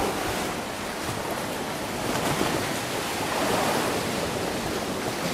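Lake Superior waves washing against the rock shore in gentle swells, with wind buffeting the microphone.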